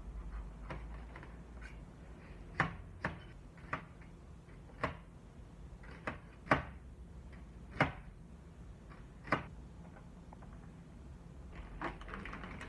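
Kitchen prep sounds: about nine sharp knocks and clicks of utensils or food being handled on a hard surface, spaced irregularly about a second apart, over a faint low hum.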